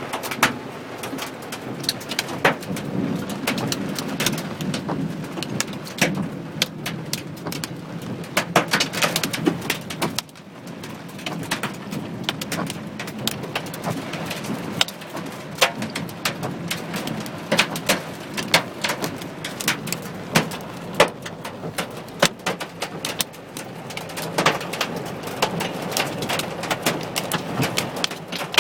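Hail and heavy rain hitting a car's roof and windscreen, heard from inside the car: a steady drumming with many irregular sharp cracks of hailstones, easing briefly about ten seconds in.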